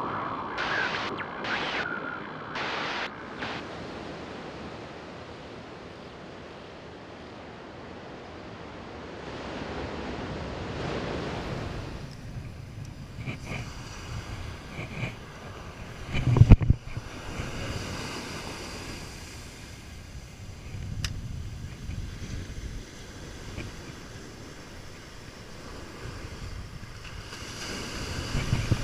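Ocean surf washing onto a sandy beach, with wind buffeting the microphone and a loud low thump about 16 seconds in. The first few seconds hold several short sharp sound effects from a logo animation.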